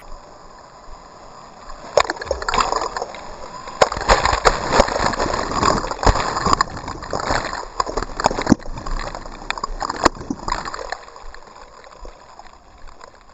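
Breaking surf washing over a camera held at water level: churning, splashing foam with many sharp clicks, building up about two seconds in and dying down near the end.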